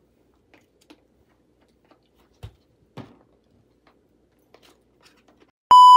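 A single loud electronic beep, one steady high tone lasting under a second, near the end. Before it there are only a couple of faint knocks.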